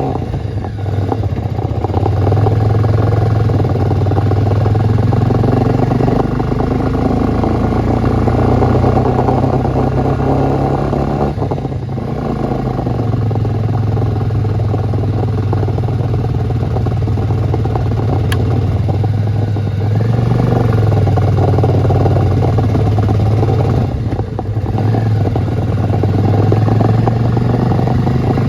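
Motorcycle engine running while riding, its note dipping and picking up again a few times, over a constant rush of wind and road noise.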